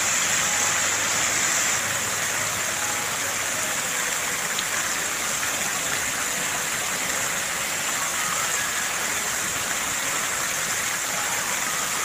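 Fountain jets splashing and cascading onto tiered stone steps, heard close: a loud, steady rush of falling water.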